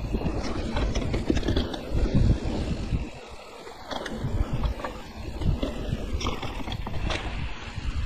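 Mountain bike riding fast down a dirt trail: wind buffeting the microphone over the rumble of knobby tyres on dirt, with scattered clicks and rattles from the bike over bumps.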